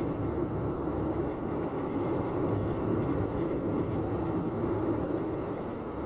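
Steady road and engine noise inside the cabin of a moving car.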